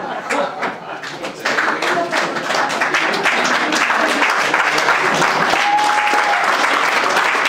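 Audience applauding, the clapping swelling about a second and a half in and then holding steady, with voices underneath.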